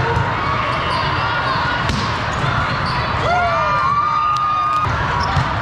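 Volleyball hall din: crowd chatter and balls knocking on the wooden courts. About three seconds in, players shout and cheer, with one long held cry, as they win the point.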